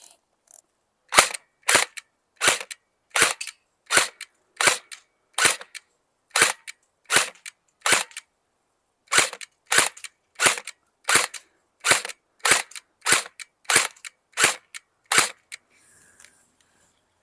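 Game Face Insurgent AEG airsoft AK-47 firing on semi-automatic: about twenty sharp single shots at a steady pace of roughly three every two seconds, stopping about 15 seconds in.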